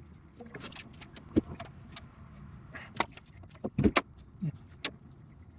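A series of sharp clicks and knocks from hands and tools working on parts, the loudest pair about four seconds in.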